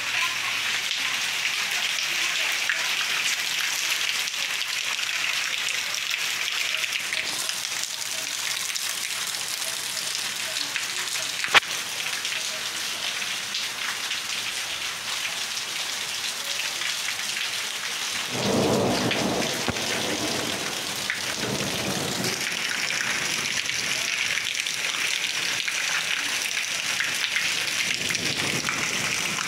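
Steady rain falling, an even hiss, with a single sharp click near the middle. About two-thirds of the way through, a low rumble of thunder lasts a few seconds.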